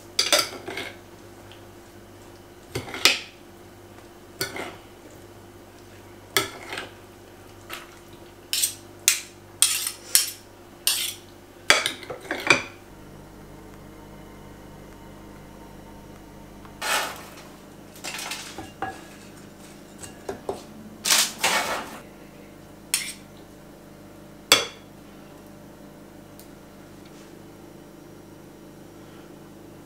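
Two metal spoons clinking and scraping against a bowl as a salad is tossed, then another spell of dish and utensil clatter as the food is served. A steady low hum runs underneath from a refrigerator, which is humming a lot that day.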